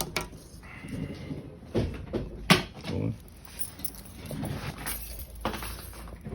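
A scatter of sharp clicks and knocks from objects being handled, the loudest a sharp snap about two and a half seconds in.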